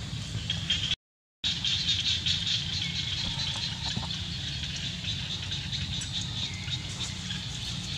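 Outdoor background: a steady high-pitched chirring with a steady low hum beneath it, cutting out to silence for about half a second about a second in.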